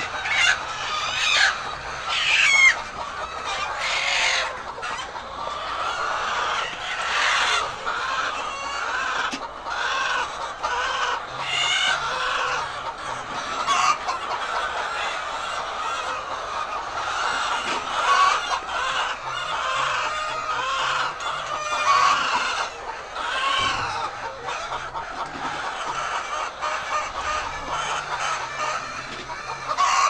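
A large flock of white laying hens clucking and calling over one another in a dense, continuous chorus.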